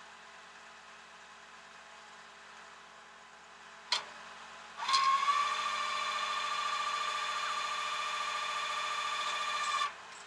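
A single sharp click, then about a second later the rollback tow truck's hydraulics start a loud, steady whine that rises in pitch at the start, holds for about five seconds and then cuts off suddenly, over the low hum of the truck's engine.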